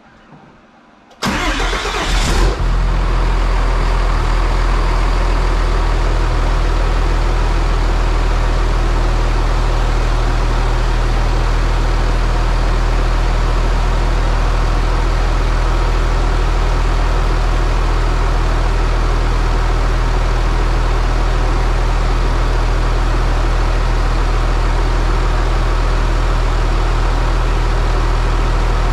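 6.7-litre Cummins inline-six turbodiesel, fitted with an S467 turbocharger, cranks and fires about a second in, then settles into a steady idle. This is the first start after the turbo install, run to check for leaks.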